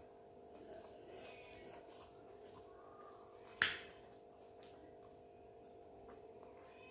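Faint eating sounds over a steady electrical hum, with one sharp click or crunch about three and a half seconds in.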